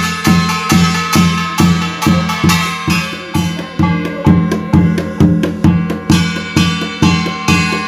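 Korean shamanic barrel drum (buk) beaten with a stick in a steady beat of about two strokes a second, with sustained ringing pitched tones sounding above the beat.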